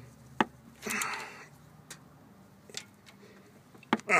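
A few scattered sharp metal clicks and knocks as a ratchet with socket extension is handled against engine parts, with a short rasping noise about a second in.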